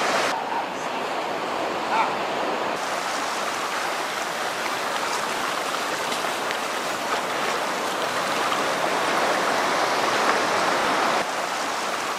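Surf washing up a sandy beach: a steady rush of waves, with one short knock about two seconds in.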